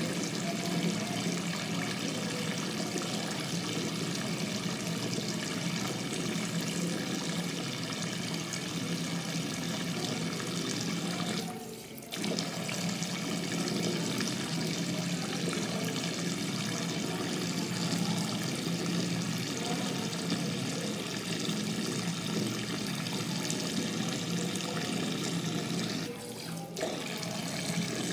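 Bathroom tap running steadily, its stream splashing into the sink basin and over a cupped hand. The rush of water goes briefly quieter twice, about twelve seconds in and again near the end.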